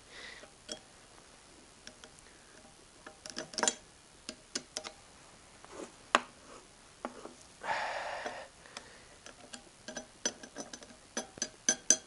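Scattered small metallic clicks and taps of a hex wrench working on a shredder's blade bolts, with a short scraping sound about eight seconds in.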